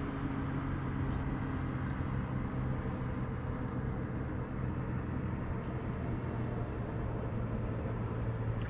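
A motor running steadily: a low, even hum with a haze of outdoor noise over it.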